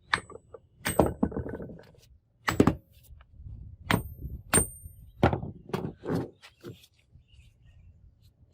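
About ten irregular metal knocks and clanks, some with a short high ring, spaced roughly half a second to a second apart and stopping after about seven seconds.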